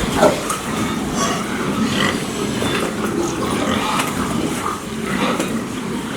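A group of pigs grunting, many short overlapping calls with no break.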